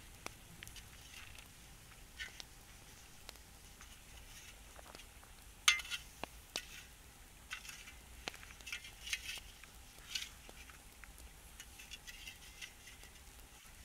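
Shovel scraping and knocking against stones and gravel in a smoking stone fire pit, in irregular strokes of short scrapes and clinks; the sharpest clink comes about six seconds in.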